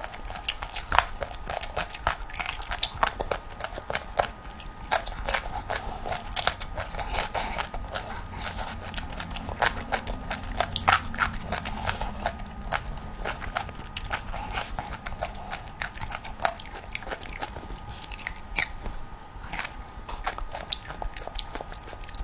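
Close-miked chewing and biting of chicken feet: a steady run of wet, sharp clicks and small crunches as skin and cartilage are chewed.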